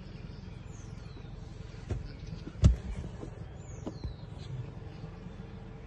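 Steady low outdoor rumble with a few sharp knocks, the loudest about two and a half seconds in, and two short high whistles falling in pitch.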